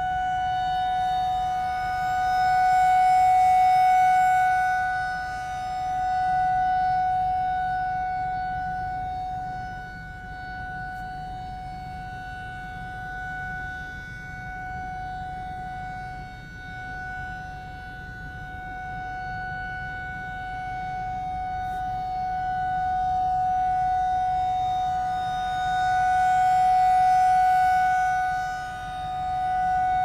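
Federal Signal 2001-SRNB rotating electromechanical outdoor warning siren sounding a steady single tone during a routine test. It grows louder and softer as the rotating horn sweeps toward and away, loudest near the start and again near the end.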